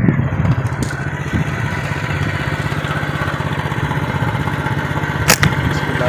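A small engine running steadily at idle, with a single sharp click a little after five seconds in.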